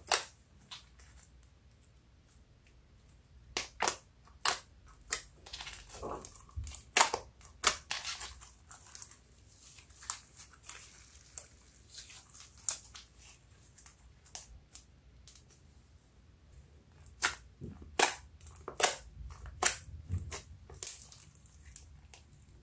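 Glossy slime being pressed, stretched and folded by hand, making irregular sharp pops and clicks, thick in two clusters with a quieter stretch between them.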